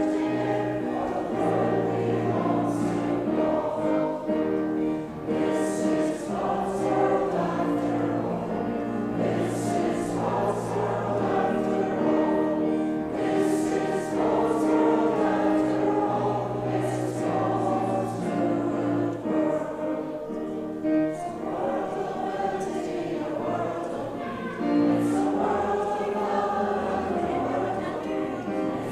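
Church congregation singing a hymn together, accompanied by piano.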